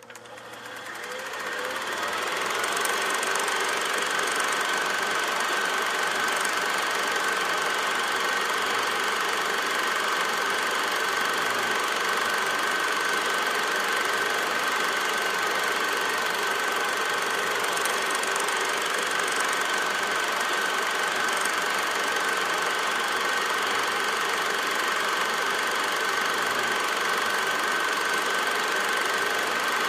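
Steady mechanical running noise with a constant high whine, fading in over the first two seconds and then holding even.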